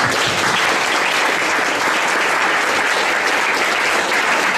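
Audience applauding steadily, many hands clapping at once: applause at the close of a talk.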